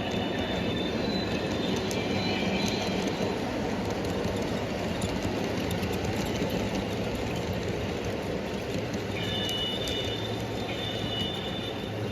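Model train running on layout track: a continuous rolling rumble with occasional clicks, and a thin high wheel squeal near the start and again from about nine seconds in.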